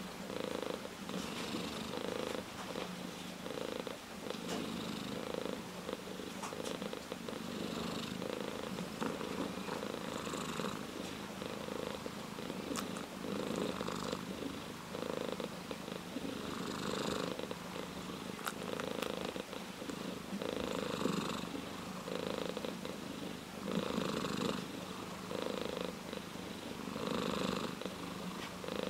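Orange tabby cat purring steadily, the purr swelling and easing in a regular rhythm with each breath in and out.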